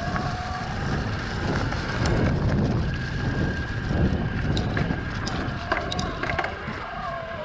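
Electric mountain bike in motion: the Shimano E8000 mid-drive motor whines steadily, its pitch shifting slightly with pedalling, over tyre rumble on a dirt and leaf-covered trail and wind on the microphone. A few sharp ticks and rattles come between about four and a half and six and a half seconds in.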